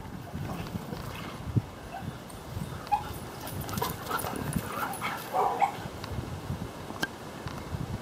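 Dogs at play giving a few short, scattered yips and whimpers.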